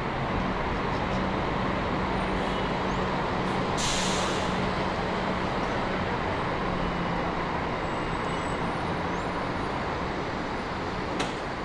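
City buses running at a bus terminal: a steady engine hum over general traffic noise, with a short air-brake hiss about four seconds in. A single sharp click near the end.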